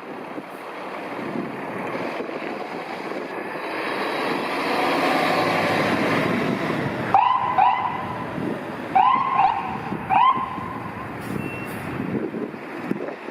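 A fire pumper's engine and road noise swell as it draws near. About halfway through its electronic siren gives five short rising chirps, in two pairs and then a single one.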